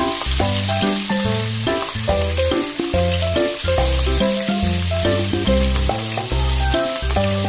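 Pieces of raw pork frying in oil in a pan, giving a steady sizzle, under background music with a repeating bass line and melody.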